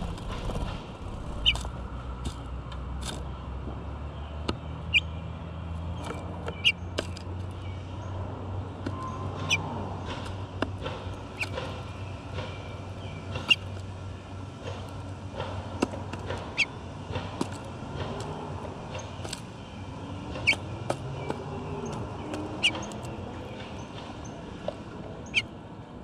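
Small birds pecking and cracking sunflower seeds in a clear plastic window-mounted feeder close to the microphone: sharp clicks and taps at irregular intervals of a second or two, over a steady low rumble.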